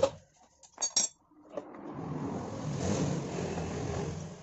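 Metal clinks of a screwdriver prying at a motorcycle engine's cylinder head cover, then a longer scraping rub as the cover is worked loose and lifted off over the cam chain and sprocket.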